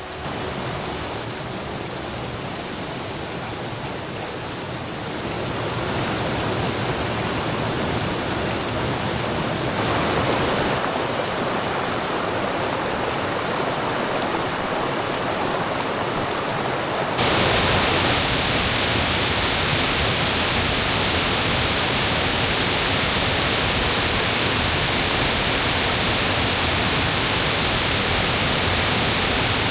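Rushing water of a mountain stream, a steady hiss with no distinct events. It grows louder about five seconds in, then jumps suddenly louder and brighter about seventeen seconds in, as if much closer to the falling water.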